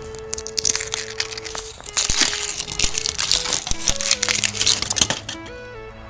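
Crinkling and crackling of a surprise egg's wrapper being handled and torn open, in dense runs of rustle over steady background music.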